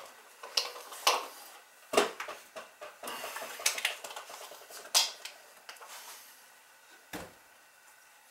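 Kitchen clatter: a string of separate knocks and clinks of dishes or containers being handled, the sharpest about two and five seconds in.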